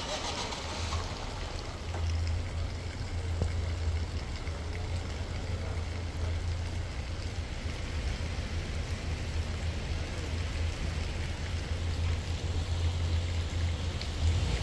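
Wind rumbling on the microphone over a steady hiss of outdoor noise.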